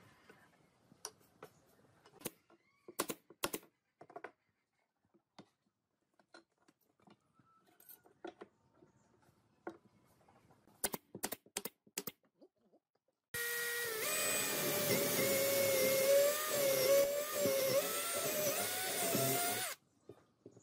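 Electric drill boring through a wooden board, running steadily for about six seconds in the second half with its pitch wavering a little under load, then stopping. Before it, scattered clicks and knocks of boards and a metal square being set down and handled on the workbench.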